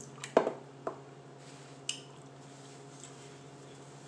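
Dishes being handled on a counter while eating: a sharp knock about half a second in, a smaller one just after, and a light click near two seconds, over a faint steady hum.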